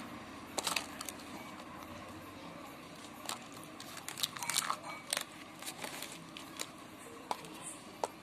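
Hands handling a plastic Cadbury tub and the clear plastic wrapper inside it: scattered crinkles and sharp plastic clicks, a few seconds apart, over a steady background noise.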